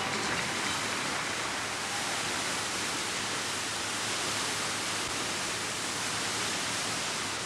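Steady, even hiss of recording noise, with nothing else heard through it.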